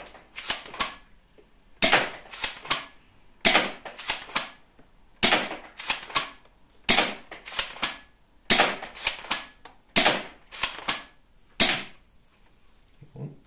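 Spring-powered airsoft pump shotgun replica (AGM Mossberg 500) being fired seven times, about one shot every second and a half to two seconds. Each sharp crack is followed by a couple of lighter plastic clacks as the pump is racked to cock it for the next shot.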